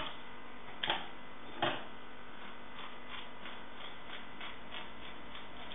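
Kitchen scissors snipping around the edge of a raw turbot fillet: two sharper clicks about a second in, then a run of faint, even snips at about four a second.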